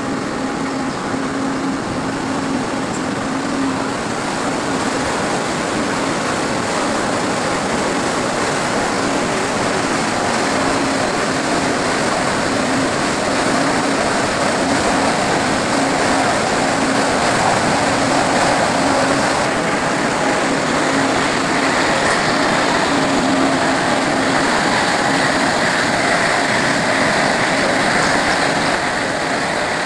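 Plywood mill machinery running steadily: a rotary veneer peeling lathe turning a log and peeling it into a continuous sheet of veneer. A dense, even mechanical din with a low hum, taking on a sharper, higher edge after about twenty seconds.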